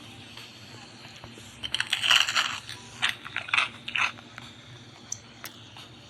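Crunchy food being bitten and chewed close to the microphone: a cluster of crunches about two seconds in, then several more separate crunches over the next two seconds.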